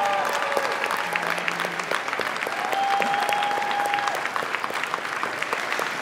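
Audience applauding steadily, with one long held whoop over the clapping near the middle.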